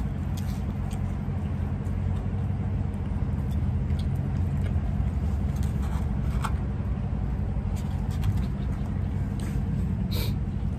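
A steady low background rumble, with faint scattered clicks of a fork and plastic takeout containers during eating.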